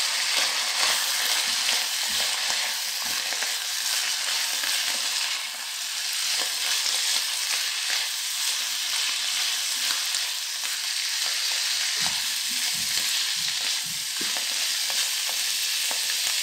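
Beef and julienned vegetables sizzling steadily in an oiled wok, with a spatula stirring and scraping through them now and then, in a run of strokes about three-quarters of the way through.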